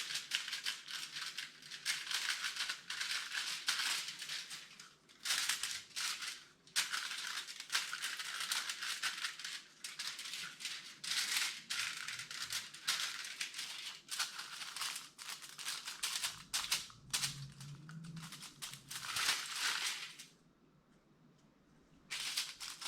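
Scratchy, rapid rubbing strokes of acrylic paint being worked onto paper, in runs with short pauses. They stop at about twenty seconds in, with one more short run near the end.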